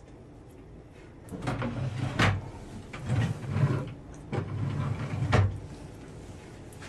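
A cabinet drawer sliding and scraping along its runners in three pushes. The first and last pushes end in a hard knock, about two seconds in and about five seconds in.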